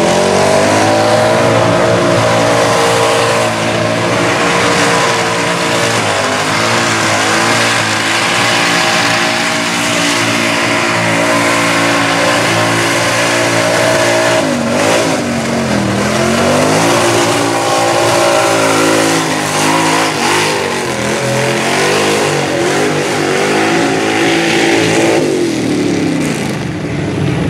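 Lifted mud bog truck on tall tractor tyres racing across a mud pit: the engine revs up hard at the start and is held at high revs, with two quick dips and climbs back about halfway through, and the revs fall off near the end. The spinning tyres churn and throw mud under the engine noise.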